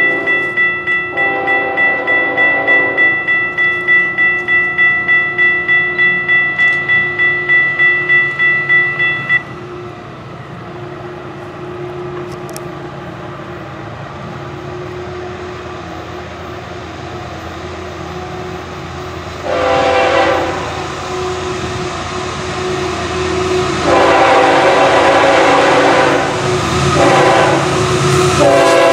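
A grade-crossing bell rings about twice a second, then cuts off about a third of the way in. Faint horn blasts are heard early. The horn of an approaching Florida East Coast freight train's GE locomotive then sounds the crossing signal, a long, a longer, a short and a final long blast, getting louder as the train nears, with rail rumble underneath.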